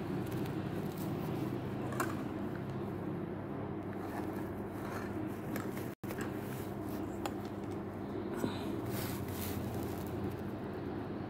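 Steady low background hum with a few faint taps and scrapes of a stylus on a tablet screen; the sound drops out for an instant about six seconds in.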